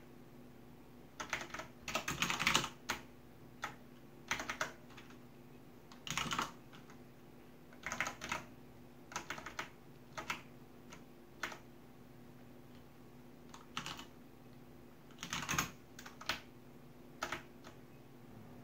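Typing on a computer keyboard: short bursts of quick key clicks with pauses of a second or more between them, over a faint steady hum.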